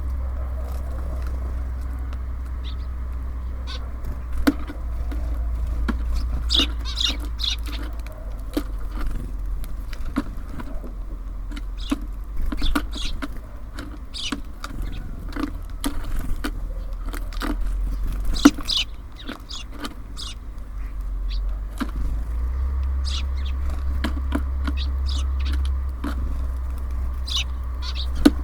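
Small birds at a feeder: many short high chirps and sharp clicks scattered throughout, over a steady low rumble of city traffic.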